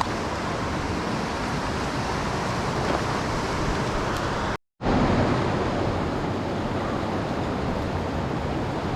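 Steady rushing of a mountain stream, an even wash of water noise. It cuts out completely for a moment about halfway through, then comes back.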